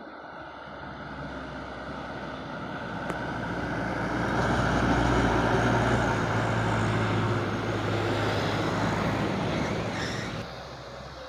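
Heavy diesel truck engine running as the truck moves close by, growing louder to a steady rumble through the middle, then dropping off suddenly near the end.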